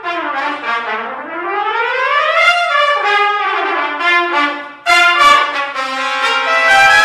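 Trumpet playing a melodic phrase: a slow glide up in pitch and back down, then a run of separate notes, a short break, and a long held note near the end.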